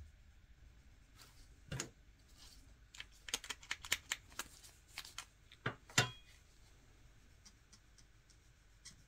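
Light clicks and taps from handling a sponge-tipped chrome-powder applicator pen while buffing powder onto a nail: a quick run of small clicks a few seconds in, then two louder clicks, then only faint ticks.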